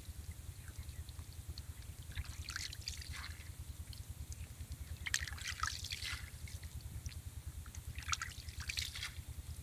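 Wet splashing and dripping in three short bursts from hands working in wet mud and shallow water, over a steady low rumble.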